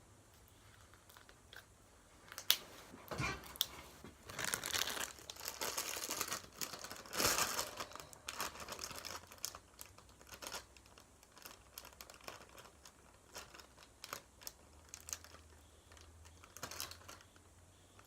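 Slime being squeezed and stretched by hand, giving irregular crackling, popping and squelching noises, busiest a few seconds in.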